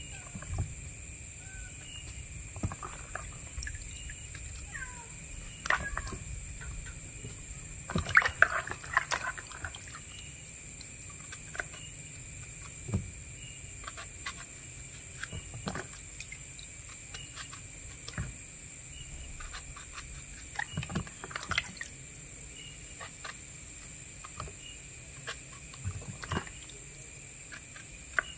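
Water splashing and dripping in a plastic basin while green eggplants are peeled and cut with a knife, with scattered small clicks and a louder flurry of splashes about eight seconds in. A steady high insect trill runs underneath.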